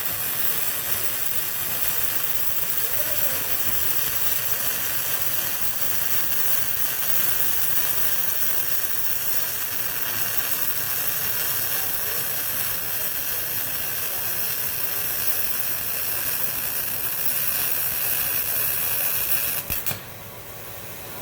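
MIG welding arc crackling steadily as a bead is run, cutting off sharply near the end when the trigger is released.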